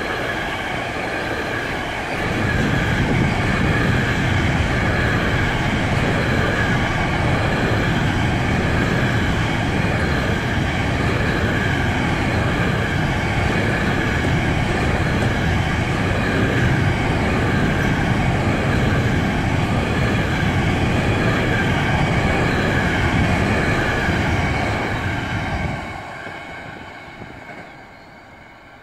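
Container freight train's wagons rolling past on the rails: a loud, steady rumble of wheels on track that drops off sharply about 26 seconds in as the last wagon goes by, then fades.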